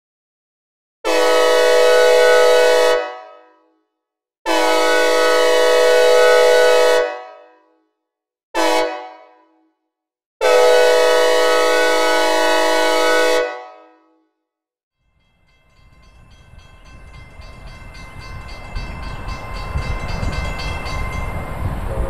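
Synthesized recreation of a Nathan K5LA five-chime locomotive air horn, blown in the grade-crossing pattern: long, long, short, long, each blast trailing off in reverb. About two-thirds of the way through, a rumble of an approaching train starts and swells, with the horn chord faint above it.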